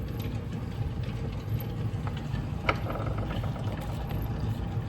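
Steady low machine hum, with one sharp click just before the three-second mark.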